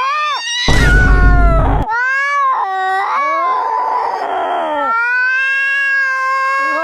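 Cats caterwauling in a fight standoff: long, drawn-out yowls that waver and bend in pitch. About a second in comes a loud, harsh burst, and a rougher, raspy call follows near the middle before another long, steady yowl.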